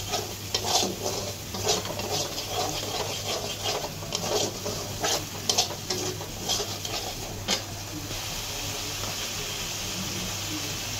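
A steel spoon stirs and scrapes a thick spice paste of onion, garlic, ginger, tomato and yogurt in a kadai, clinking against the pan while the masala fries in oil. About three quarters of the way through the stirring stops, leaving a steady sizzle.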